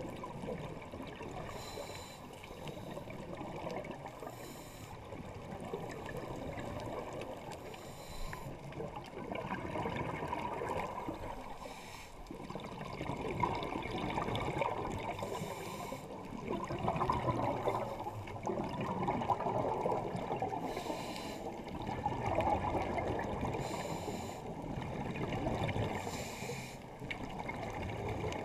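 Muffled underwater rush of scuba regulator breathing and exhaled bubbles, swelling and fading every few seconds.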